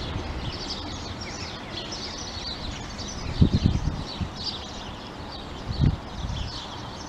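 Small birds chirping and twittering over a faint low rumble from the Hastings diesel-electric unit as it draws away down the line. Two brief low thumps come about three and a half and six seconds in.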